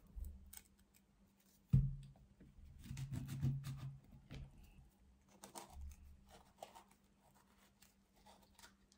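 Chef's knife cutting into a ripe avocado on a wooden chopping board: a sharp knock against the board about two seconds in, then a second or so of the blade scraping around the skin and stone, followed by small clicks as the fruit is handled.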